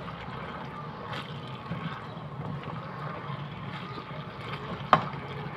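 Silicone spatula stirring chicken and vegetables through thick, cooking gravy in a wok: a steady wet stirring and bubbling sound, with one sharp knock near the end.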